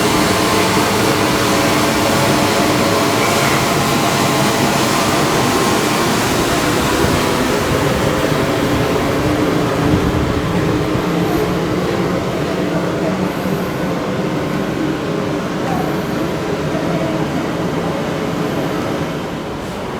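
Seibu Tamagawa Line electric train running close by: a steady loud rumble of wheels on rails with a humming motor drone, easing off slightly over the last few seconds.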